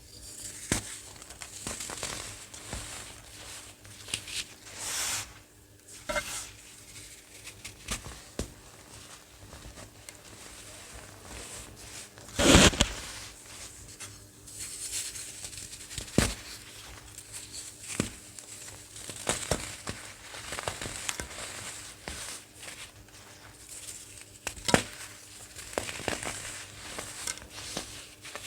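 Crunchy baked baking soda being crushed: scattered crisp crunches and crackles, with one loud crunch near the middle.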